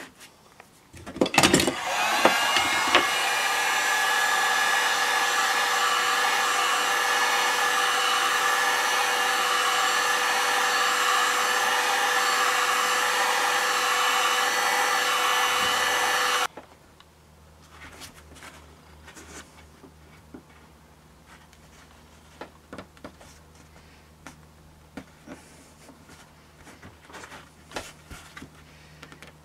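Handheld electric heat gun running steadily, its fan giving a whine with a few steady tones, as it softens a PVC sword handle for flattening. It starts about two seconds in after a few knocks and cuts off suddenly about halfway through, leaving faint taps and knocks.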